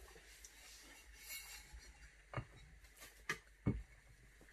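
Three faint clacks of a ceramic tile handled and set down on a tabletop, the last one the loudest.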